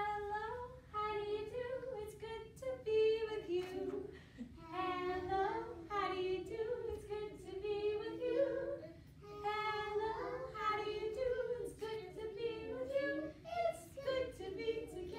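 A woman and young children singing a song together, unaccompanied.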